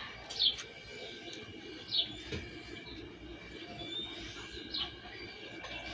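A few short, high, falling bird chirps, spaced a second or two apart, over a faint low steady drone.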